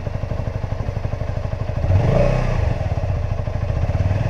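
2007 Honda CBR125's single-cylinder four-stroke engine running at idle in a steady even chug, getting louder for a moment about two seconds in.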